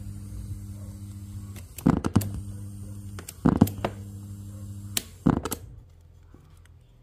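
Cassette player giving a steady mains hum, broken by three groups of loud clicks and clunks from handling or its controls about two, three and a half, and five seconds in. The hum cuts out after the last clunks.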